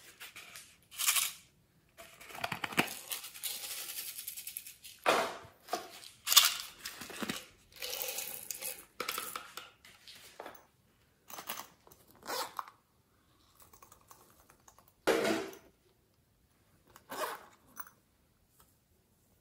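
Sequins and glitter shaken out of small plastic bottles onto slime: a series of short rattling, scattering bursts with pauses between, one longer pour about two seconds in.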